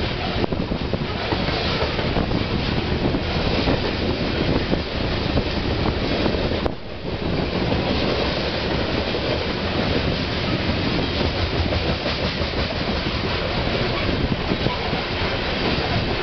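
Loaded coal hopper cars of a freight train rolling past close by, their steel wheels clattering over the rail joints in a steady rush that dips briefly about seven seconds in.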